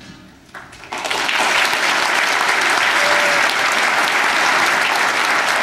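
Audience applauding, breaking out about a second in after the music fades and then carrying on steadily.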